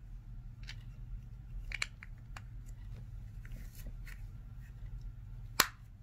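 Small plastic clicks and light handling noise as a 3D-printed plastic sensor case is fitted shut by gloved hands, a few scattered clicks and one sharper snap near the end, over a low steady hum.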